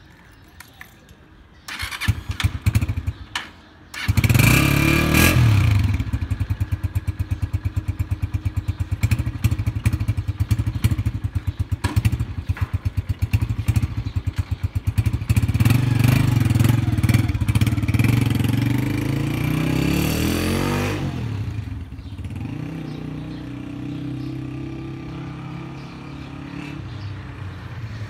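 Honda CG125's air-cooled single-cylinder four-stroke engine cold-started through its stock exhaust: a couple of seconds of kick-starting, then it catches about four seconds in and idles with an even beat. Around twenty seconds in it revs up as the bike pulls away, and the exhaust fades as it rides off.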